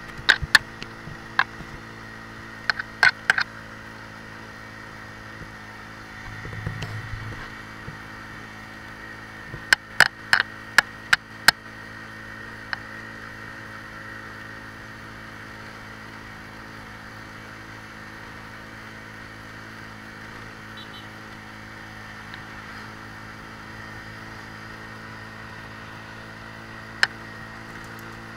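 Motorcycle engine running steadily on the move. Clusters of sharp clicks and knocks come in the first dozen seconds, with one more near the end.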